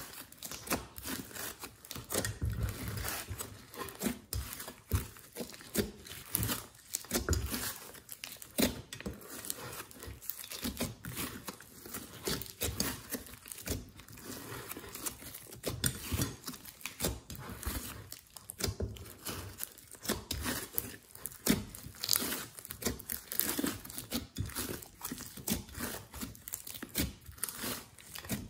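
Hands squeezing and kneading a large mass of glossy slime: a dense, irregular run of sticky crackles, clicks and squelches as air pockets pop and the slime pulls apart.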